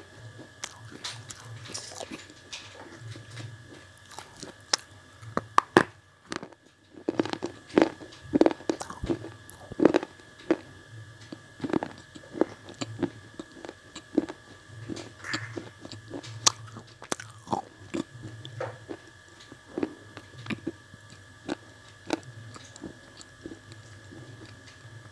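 Red slate blocks being chewed right at a microphone held to the lips: sharp, irregular crunches of the hard pieces breaking between the teeth, with softer grinding in between. A faint steady high whine runs underneath.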